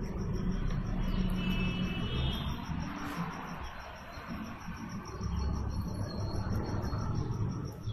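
An insect chirping steadily in a high, rapid, even pulse over a low background rumble.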